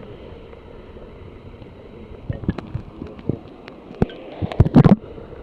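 Muffled river water sloshing around a camera held at and just under the surface, with a few scattered knocks and a louder splash near the end.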